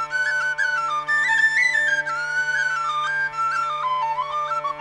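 Irish traditional music: uilleann pipes playing a quick, ornamented melody over a steady drone.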